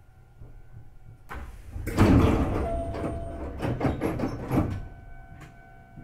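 Hankyu 8300 series train standing at a station: a hiss of air, then the passenger doors sliding open with a loud clatter of clunks and rattles lasting about three seconds. A faint steady hum of the stopped train follows.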